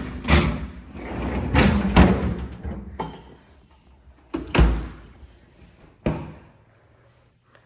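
Doors of a French-door refrigerator being handled and shut: rustling clunks, then a heavy thud about four and a half seconds in and a lighter click about a second and a half later.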